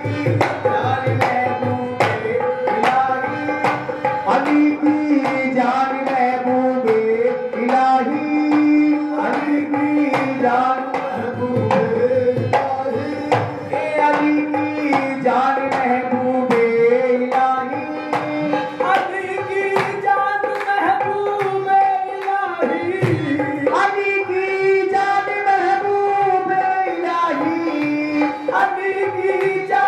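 Qawwali instrumental interlude: a harmonium playing the melody in held notes over a steady dholak drum rhythm, with hand claps.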